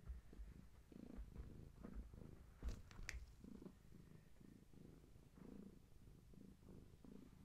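Long-haired tabby cat purring, a low soft purr in pulses. Two brief clicks about three seconds in.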